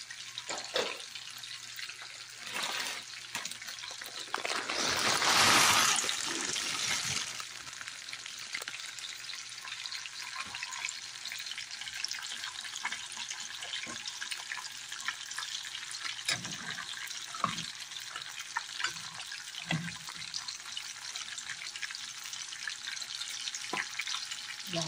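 A pot of water with macaroni boiling on the stove: a steady bubbling hiss with small pops and crackles. A louder rushing swell comes about five seconds in and fades after a couple of seconds.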